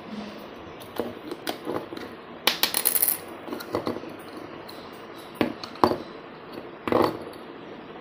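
Hard plastic clicks and clatter as a bicycle alarm's plastic housing is handled and its battery compartment opened, with a quick run of clicks about two and a half seconds in and sharper knocks near six and seven seconds.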